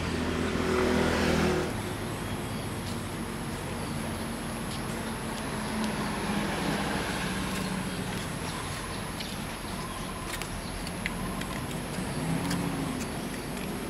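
Steady outdoor background noise with a motor vehicle's engine hum. A louder engine drone in the first second and a half cuts off abruptly.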